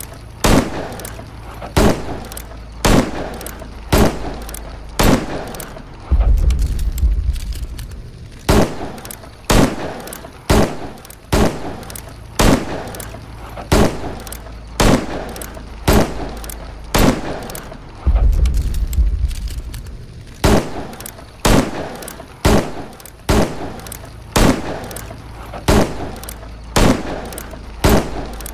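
Smith & Wesson Model 10-7 .38 Special revolver firing shot after shot, about one a second, each a sharp crack with a short echoing tail. Twice a deep low rumble fills a gap of about two seconds between shots.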